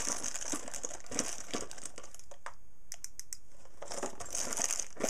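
Hands rummaging through a cardboard box of assorted electrical switches: plastic bags crinkling and small switches clicking against one another, with a short lull a little past halfway broken by a few sharp clicks.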